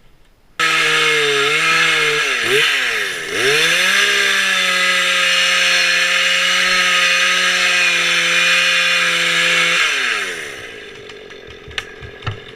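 A two-stroke chainsaw running at high revs. Its pitch dips and recovers a couple of times early on, then holds steady for several seconds before it winds down near the end.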